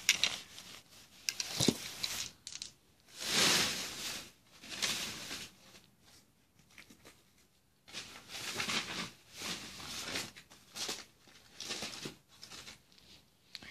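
Rustling and scraping handling noise from the phone being moved close over a play mat, in irregular bursts with a short click about two seconds in and a quiet gap in the middle.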